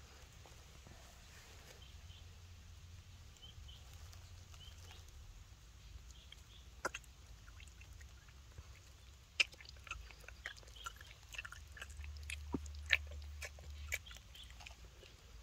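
Baby macaque sucking milk from a bottle teat: irregular wet clicks and smacks that begin about seven seconds in and come thickest near the end.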